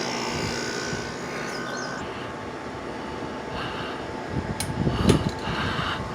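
Haier 5000 BTU window air conditioner running on high cool with its compressor on: a steady mechanical hum with fan rush. A few short knocks about four and a half to five seconds in.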